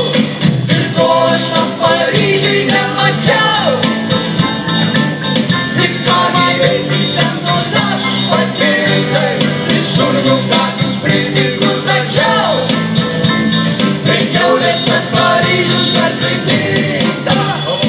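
Live band playing a song with electric bass, acoustic guitar, keyboard, drums and clarinet.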